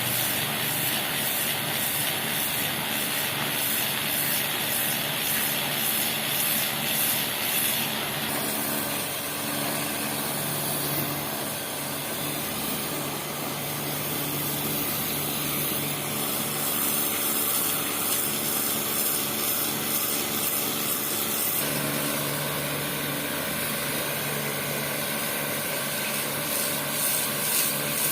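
Pressure washer running and spraying its high-pressure jet across a floor to strip moss: a steady hiss over the machine's hum. The sound changes about 8 seconds in and again about 21 seconds in.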